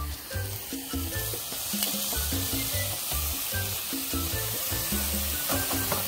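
Food sizzling in a hot frying pan, the hiss growing stronger about two seconds in, under background music.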